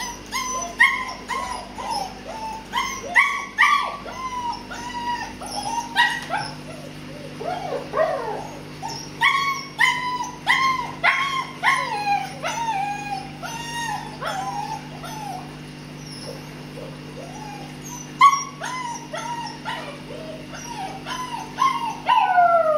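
White Swiss Shepherd puppies whining and yipping: many short, high cries that mostly fall in pitch, coming in quick succession, with a lull of a few seconds past the middle before they pick up again.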